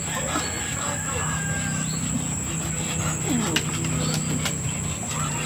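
Two dogs play-fighting, a Doberman and a smaller tan dog mouthing at each other, with low growling and a short falling whine about three seconds in.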